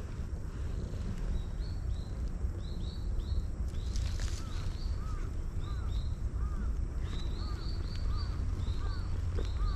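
Cat purring while its belly is stroked, a steady low rumble. A small bird chirps repeatedly in the background from about a second in.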